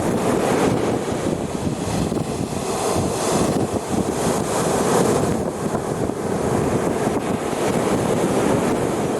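Sea waves breaking and washing on the shore in surges, with wind buffeting the microphone.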